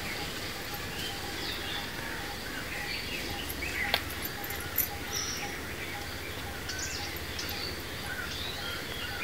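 Birds chirping with many short scattered calls, with a faint repeating peep underneath and a single sharp click about four seconds in.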